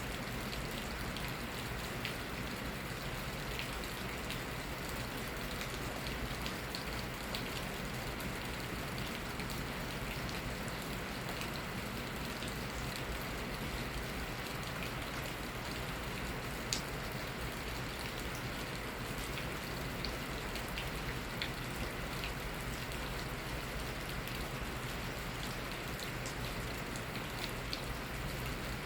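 Steady spring rain falling, an even hiss with scattered sharper drops ticking on a surface, one louder drop about two-thirds of the way through.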